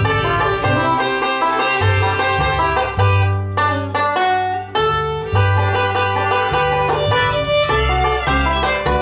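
Bluegrass string band playing an instrumental: a banjo picking rolls, a bowed fiddle and a plucked upright bass line.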